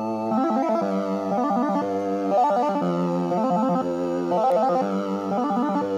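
Oscilloscope music: synthesized electronic tones with a bass part that repeats about once a second under quickly stepping higher notes. It is the same audio signal that draws the green vector shapes on the oscilloscope screen.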